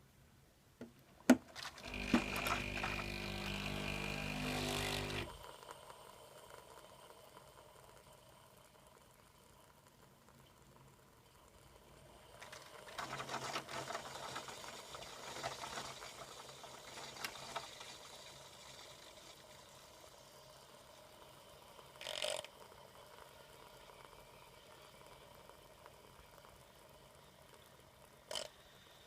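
Bosch Tassimo pod machine brewing a hot chocolate disc: a click, then the pump buzzes loudly for about three seconds and stops abruptly. A quieter hissing spell of liquid passing through the disc follows, with two short clicks near the end.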